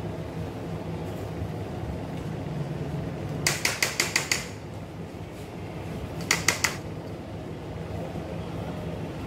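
Brownie batter being scraped from a bowl into a cake tin with a spatula: a quick run of about seven sharp clicks about three and a half seconds in, and three more about six seconds in, as the utensils knock together. A steady hum underneath.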